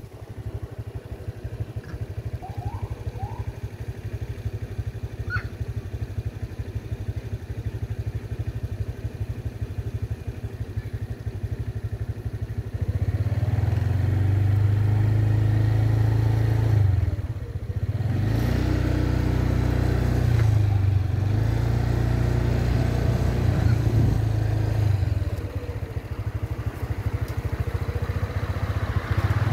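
A vehicle engine idling close by, a low steady hum that grows louder about halfway through, its pitch then dipping and rising a few times.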